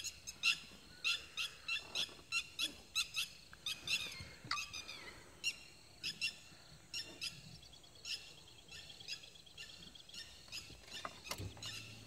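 Birds giving repeated short, sharp alarm calls, a couple of calls a second, as they mob and dive at a mongoose; the calls thin out and grow fainter after about six seconds.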